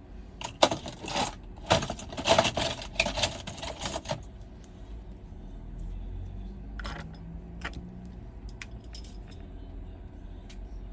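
Small hard parts and tools rattling and clinking together as they are handled, for about four seconds, followed by a few single light clicks.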